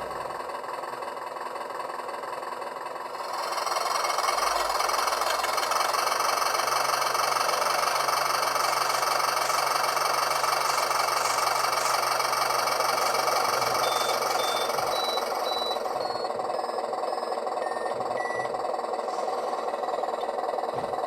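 Steady engine-like running noise from the model vaporetto, stepping up in level about three seconds in and then holding even, with a low hum under it for much of the time. A few short, faint high beeps come near the end.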